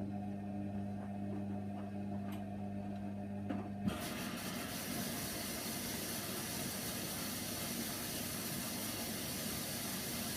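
Hoover Nextra HNWL 7146 washer dryer: a steady low hum stops about four seconds in and gives way to a steady rush of water as the machine takes in water.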